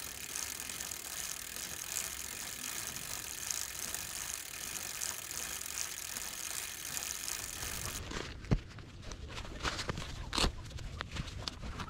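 Trek Marlin 5 mountain bike's rear hub freewheeling, its pawls clicking in a fast, steady ticking. About eight seconds in the sound changes abruptly to scattered sharp knocks and crunches.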